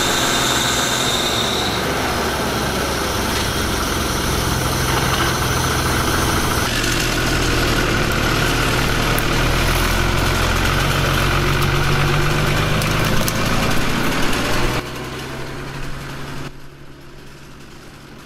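Heavy diesel machinery running at a wood-chipping site: the Fiat 140-90 tractor's engine and the chipper it drives. The engine pitch dips and recovers around the middle. The sound changes abruptly a few times and drops in two steps near the end.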